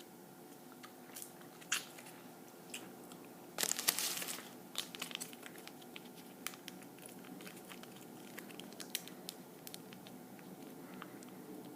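Close-up eating sounds from a cheeseburger-and-fries meal: scattered bites, chewing and small crackly clicks. A denser, louder crunch or crinkle comes about four seconds in.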